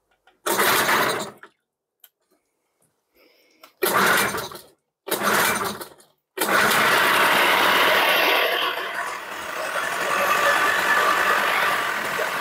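1999 Tohatsu 3.5 hp two-stroke outboard being pull-started: three short bursts as the recoil cord is pulled, then it catches on the third pull about six seconds in and keeps running, a little unevenly, on fresh fuel.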